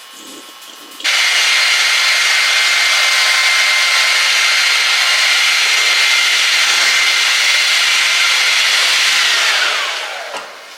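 Hair blow dryer switched on about a second in, blowing with a steady high whine, then switched off near the end, its motor winding down in a falling whine. It is drying the freshly sprayed wig lace.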